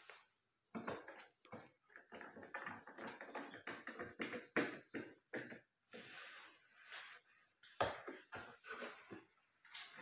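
Faint, irregular rustling and clattering of wires and tools being handled by hand, a quick scatter of small scrapes and knocks.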